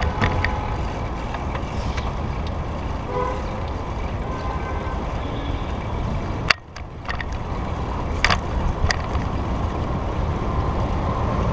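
Steady road and wind noise from riding a bicycle through city traffic, heavy and rumbling in the low end. A few sharp clicks stand out, one about six and a half seconds in and two more around eight to nine seconds.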